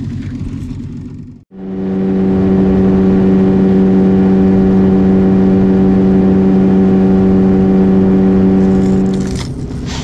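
Outboard motor driving a small boat at steady speed, a loud even-pitched hum. It cuts out sharply about a second and a half in, comes straight back louder, and drops back to a quieter run near the end.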